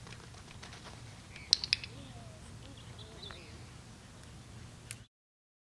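Low steady outdoor background hum with a quick run of three sharp clicks about a second and a half in, and faint chirps after. The sound cuts out near the end.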